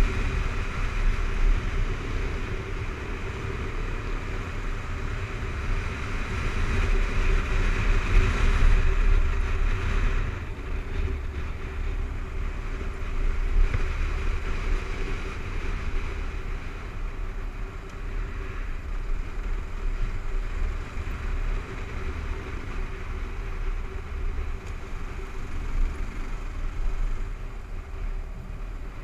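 Kawasaki KLR 650 single-cylinder dual-sport motorcycle running steadily under way on a gravel road, with wind rumbling on the microphone. The noise swells a little and then eases about ten seconds in.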